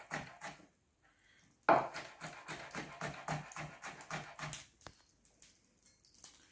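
Cleaver chopping garlic cloves on a plastic cutting board, quick even chops about four a second. They break off for about a second near the start, resume with one hard chop, and thin out after about five seconds.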